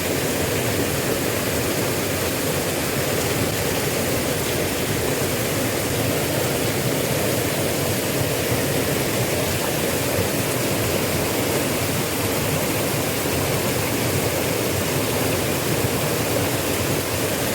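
Water of a small river rushing steadily, an even unbroken noise.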